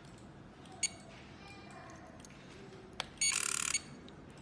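Smart code door lock's keypad panel beeping as an opening card is read: a short electronic beep about a second in, then a click and a louder beep lasting about half a second, the lock accepting the card.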